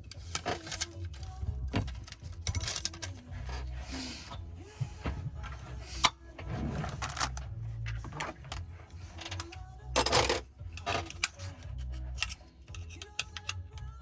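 Background music with a steady bass line, under many small sharp clicks and taps and a few brief scrapes, like hand tools working on a phone. The loudest scrape comes about ten seconds in.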